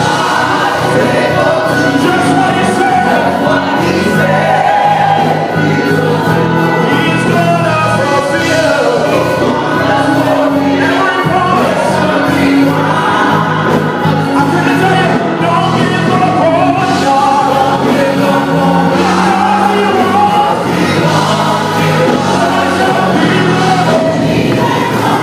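Gospel choir singing with instrumental accompaniment, steady and loud throughout.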